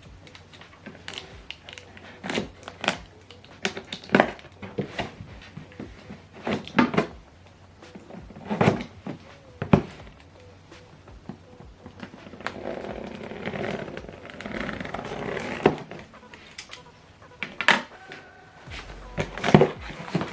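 Printer's cardboard box and packing being opened and unpacked by hand: irregular knocks and thuds of flaps and packed parts, with a few seconds of rustling packaging about two-thirds of the way through.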